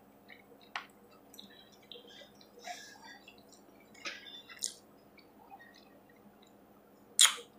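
Quiet eating sounds: soft wet chewing and small clicks of a spoon in a plastic bowl of macaroni and cheese with chicken. Near the end comes one short, sharp sniff from a nose running on spicy food.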